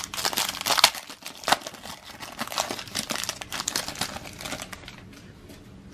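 Foil wrapper of a trading card pack being torn open and crinkled in the hands: a dense run of irregular crackles that thins out near the end.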